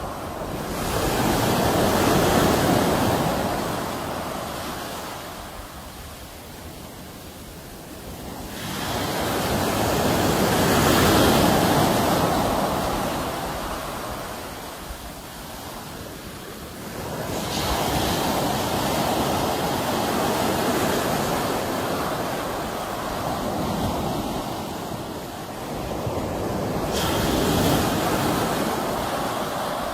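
Sea waves breaking and washing in, each surge swelling up and then fading away, about every eight to nine seconds.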